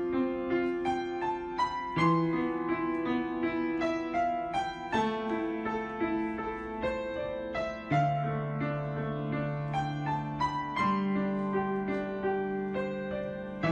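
Slow, gentle piano music: a melody of single struck notes over low notes that change every two to three seconds.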